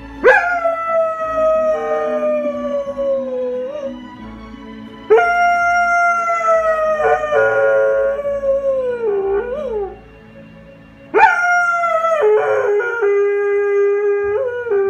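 Dog howling three times, each howl starting suddenly and sliding slowly down in pitch over about four to five seconds, the third ending in a long held note. Faint television music plays underneath.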